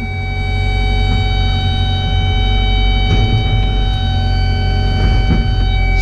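Caterpillar 325 Next Gen excavator's diesel engine running steadily under hydraulic work, with a constant high whine over the rumble. A few soft knocks come about three and five seconds in.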